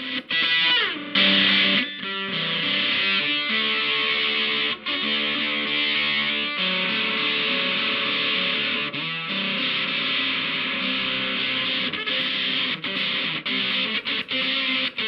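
Electric guitar played through a Katanasound handmade distortion pedal: heavily distorted sustained chords and riffs, with a downward slide about a second in.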